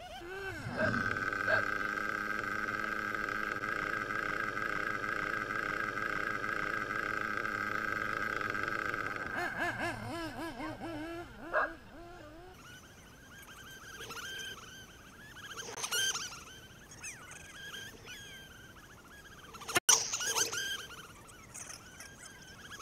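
Nitro RC buggy engine running at high revs, a steady high-pitched whine for about nine seconds, then rising and falling with the throttle as the buggy drives around. Two short louder sounds come in the second half.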